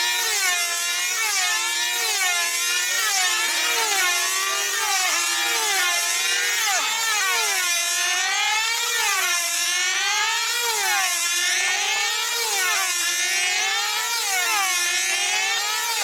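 F2C team-racing control-line model aircraft, several at once, their small diesel engines making a high whine. The pitch rises and falls steadily, about once a second, as each model circles the pilots.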